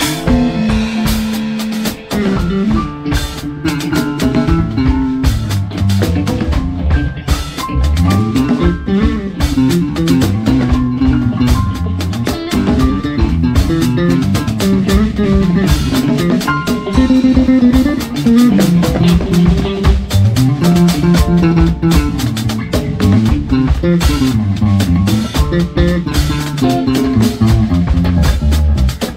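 Live band playing, with drum kit and guitar to the fore over a busy bass line.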